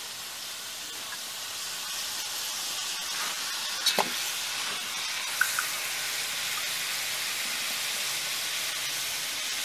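Pork shoulder searing in a pot over a wood fire, sizzling steadily in its fat and juices. There is a single clink about four seconds in as the meat is moved around with a fork.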